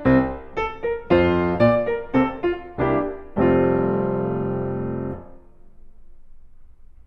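Background piano music: a quick series of notes and chords, ending in one chord held for about two seconds that dies away a little after five seconds in, leaving only faint low background noise.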